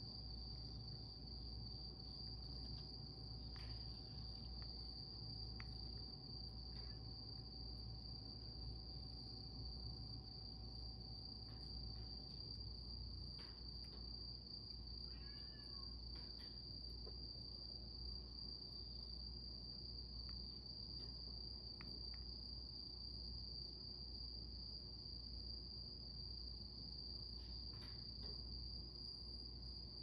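A cricket trilling steadily on one high note, without a break, over a low faint hum, with a few soft clicks.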